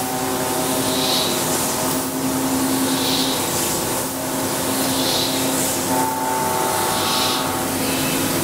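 Yaskawa industrial robot arm's servo motors whining steadily over machine noise as the arm moves, the hum changing pitch partway through. Four short hisses come about every two seconds.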